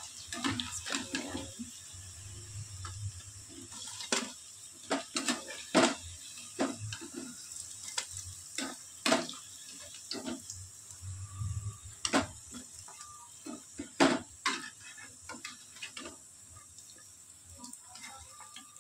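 Kitchen utensils clinking and tapping against pans or plates while finished potato pakoras are handled: a dozen or more sharp, irregularly spaced strikes over a faint steady hiss.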